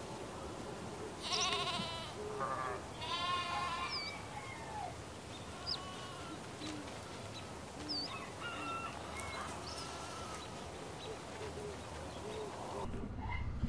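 Bleating livestock: two wavering bleats a second or two in, with short bird chirps scattered through a steady farmyard background.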